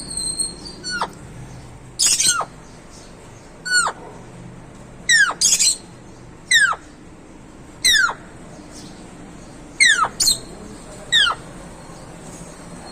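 Pet parrot imitating an Asian koel (koyal): about ten short whistled calls, each falling steeply in pitch, repeated every second or two, with a couple of harsher squawk-like notes among them.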